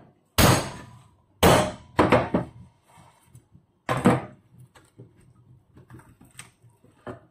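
Meat cleaver chopping into a whole fish on a wooden cutting board: four heavy thunks in the first four seconds, the cleaver working through the fish's very hard head, then a few lighter knocks.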